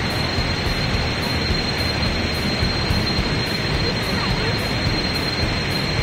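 Tee Lor Su waterfall's falling water making a loud, steady rushing noise, even and unbroken throughout.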